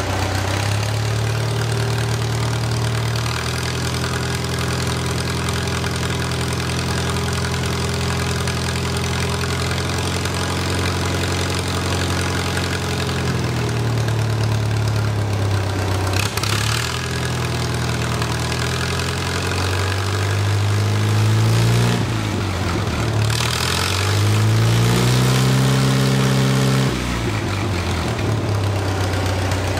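Farmall 140's C-123 four-cylinder engine running through a straight-pipe exhaust, revved up and held, then let back down, three times, the last drop sudden. Its governor spring has been shortened by one coil to make it run stronger.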